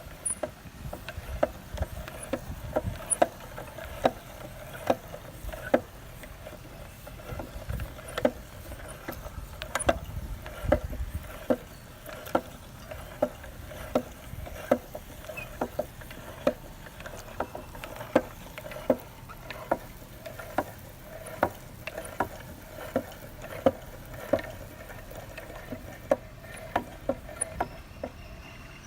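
Meat grinder crushing Orbeez water beads: a run of irregular sharp clicks and squishes, one or two a second, over a low steady grinding.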